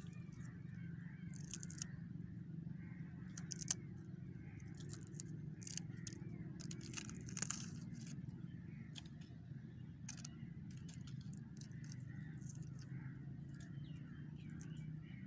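Outdoor forest ambience: a steady low rumble with scattered, irregular sharp crackles and snaps, the loudest about four, six and seven and a half seconds in.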